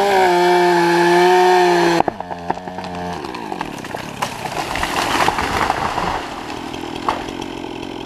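A chainsaw running at full throttle in the felling cut, then dropping toward idle about two seconds in. A large conifer then goes over with a long rush of swishing branches and several sharp cracks.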